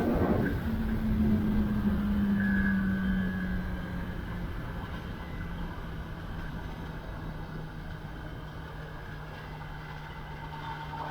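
Kawasaki ZX-10R's inline-four engine running with its note falling slowly and growing quieter, as if backing off the throttle. Wind and road noise run underneath.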